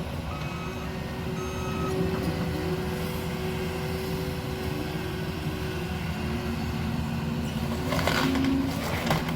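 Diesel engine of heavy demolition machinery running steadily, with a backup alarm beeping a few times early on. Near the end there is a crunching crash of debris as the house is torn apart.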